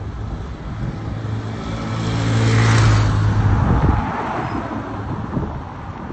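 Road vehicles driving past close by: a motorcycle and a car go by, the engine note building to its loudest about three seconds in, its steady pitch cutting out about four seconds in, leaving tyre and road noise.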